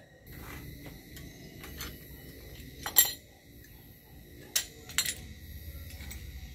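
Sharp metallic clinks of metal against metal, a few separate strikes with the loudest about three seconds in, over a steady low rumble.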